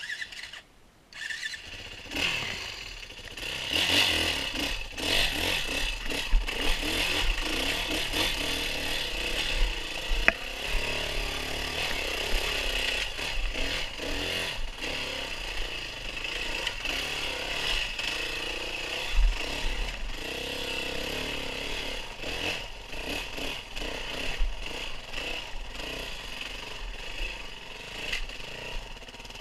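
An off-road vehicle engine, from a trail dirt bike or quad, comes in about a second and a half in and then runs continuously. Its pitch wavers up and down with the throttle, over a noisy rattle.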